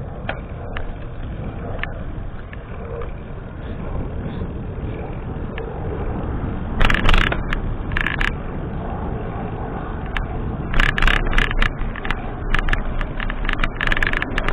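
Road bicycle riding along with wind rushing over the handlebar-mounted camera's microphone and the tyres rolling on pavement. From about seven seconds in, sharp crackling knocks come in bursts, growing denser near the end as the bike rolls over rough, gravelly asphalt.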